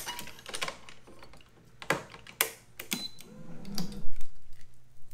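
Sharp, scattered clicks and clacks of a racquet stringing machine's clamps and string being handled, about half a dozen in all, with a brief low hum between three and four seconds in.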